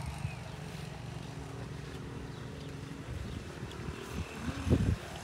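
A motor engine droning steadily, with a few low thumps about four and a half seconds in.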